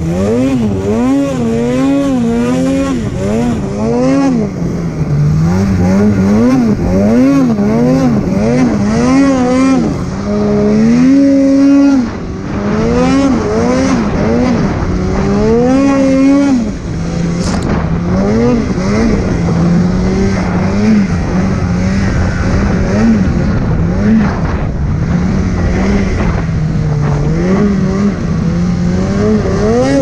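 Polaris snowmobile engine, heard from on the sled, revving up and down over and over as it is ridden through deep powder; the pitch rises and falls about once a second, settling into steadier running for a few seconds at a time.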